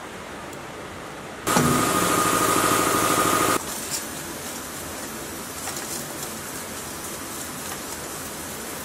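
A loud, steady mechanical whine with a high tone starts and stops abruptly, lasting about two seconds from about a second and a half in. After it, a softer swishing and scraping as diesel engine parts are scrubbed with a brush in a metal basin.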